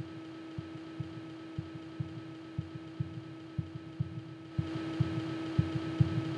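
Soft heartbeat-like thuds in pairs, about one pair a second, over a steady low hum. About four and a half seconds in, a hiss swells up and the thuds come faster and louder.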